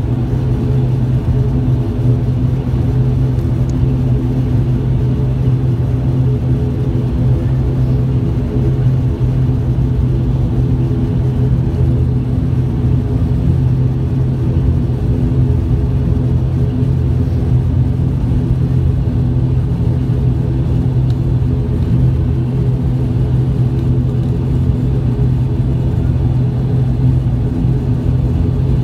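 ATR 42-600 turboprop engines and propellers droning steadily while the aircraft taxis, heard from inside the cabin. A strong low propeller hum with a few steady higher tones stays level throughout.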